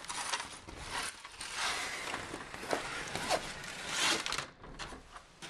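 Storm door latch handle clicking and the door being worked, with scraping and rustling and a few sharp clicks. The noise is loudest just after four seconds in, then drops off sharply.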